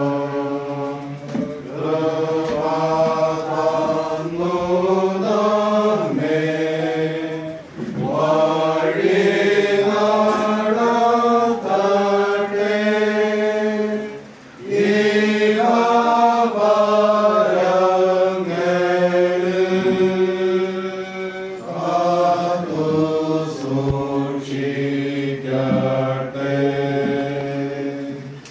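A congregation singing a Malayalam hymn together, a slow, chant-like melody sung in held notes, line by line, with short breaks for breath about eight and fourteen seconds in.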